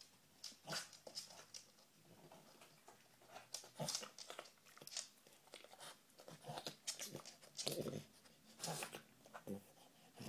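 A French bulldog sniffing and snuffling close to the microphone as it hunts for treats on the floor, with crunching as a treat is chewed. The sounds come as a string of short, irregular bursts.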